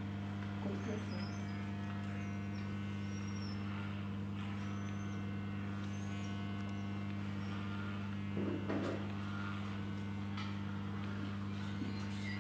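Corded electric animal clippers running with a steady low hum, clipping fur from a dog's foreleg. A short soft sound comes about eight and a half seconds in.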